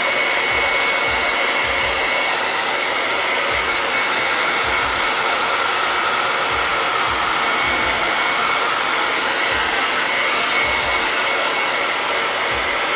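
Small handheld hair dryer blowing steadily over a painted wooden sign to dry the fresh chalk paste, a rush of air with a steady high whine.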